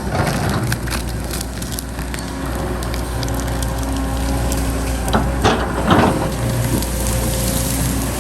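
Diesel engine of heavy earthmoving machinery running steadily, over irregular crunching and crackling of soil and stones being worked, with a cluster of heavier knocks about five to six seconds in.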